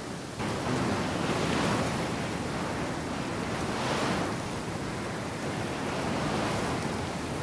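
A steady rushing noise that steps up suddenly just after the start, then swells and fades in slow surges every two to three seconds.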